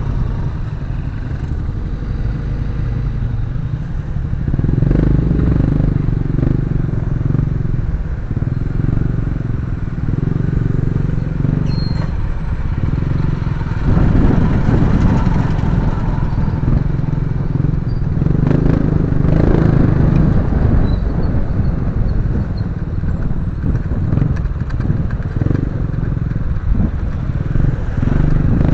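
Motorcycle engine running through slow traffic, its revs swelling and easing off again and again, over steady road noise. The sound grows louder about halfway through.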